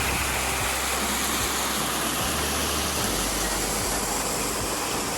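Steady rushing of a waterfall: an even, unbroken noise of falling water.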